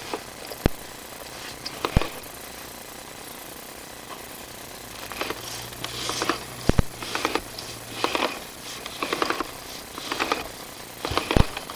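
Drain inspection camera rig being handled and its push cable fed along the pipe: irregular bursts of rattling with a few sharp knocks, and a faint low hum for a few seconds in the middle.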